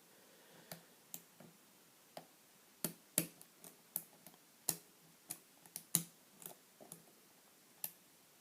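Irregular small metallic clicks of a lock pick and tension wrench working the pins of a 3-star euro cylinder lock, the pick being felt pin by pin through the keyway.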